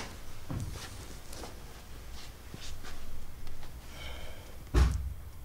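Soft footsteps and shuffling movement, with a few light knocks, then one heavy low thump near the end.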